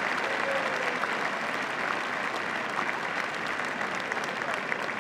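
Large arena audience applauding: a steady patter of many hands clapping, easing off a little toward the end.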